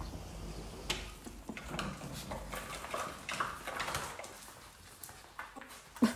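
A litter of seven-week-old puppies scrabbling and pattering across a tiled floor and rubber doormat, many small paw and claw clicks, with one sharp knock near the end.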